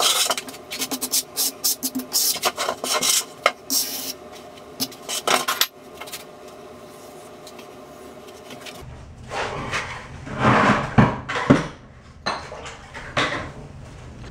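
Hand tools and material scraping and knocking during tile setting: a quick run of short scrapes and taps, a quieter pause, then a few heavier scrapes and knocks near the end.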